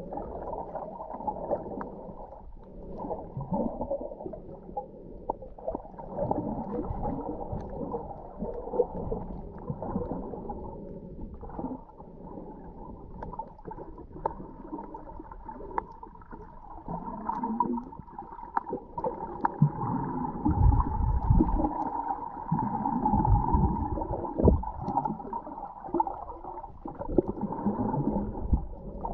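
Muffled underwater sound picked up by a camera held under the surface: water churning and gurgling with irregular knocks and deep surges. A steady hum runs through it and grows stronger in the second half.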